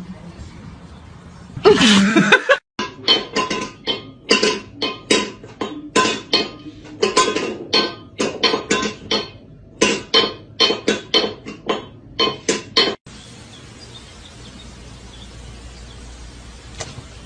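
A loud noisy burst, then a long run of sharp clinks of something hard that rings briefly, two or three strikes a second. The clinks stop suddenly about thirteen seconds in, leaving only a low steady hum.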